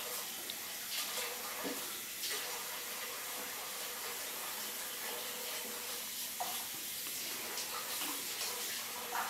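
Faint, scattered light clicks and scrapes of a disc-detainer pick turning the discs inside a Tigon disc-detainer padlock, over a steady hiss.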